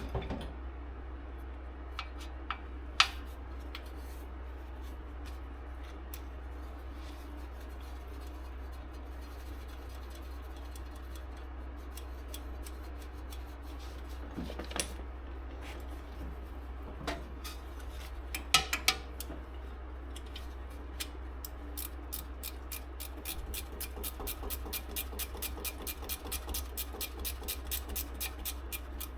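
Scattered clicks and knocks of metal parts being handled, then, from about three quarters of the way in, a hand ratchet clicking quickly and evenly as a bolt is turned. A steady low hum runs underneath.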